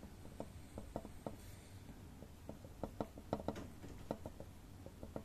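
Pen writing on paper: faint, irregular ticks and light scratches of the pen strokes.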